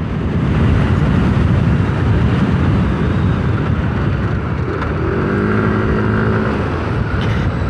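Yamaha Aerox 155 scooter's single-cylinder engine running while riding, with heavy wind rumble on the microphone. About five seconds in, a steady pitched hum joins for over a second.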